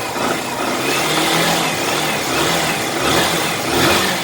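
Yamaha Fazer 150's single-cylinder engine running, with small rises and falls in engine speed. It runs with a freshly rewound stator fitted, and the stator's earlier noise has gone.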